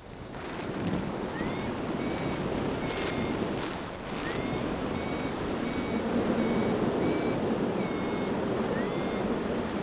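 Wind rushing over a paraglider pilot's headcam microphone, with a flight variometer beeping in short repeated high tones about one to two times a second, the sound a vario makes when the glider is climbing in lift.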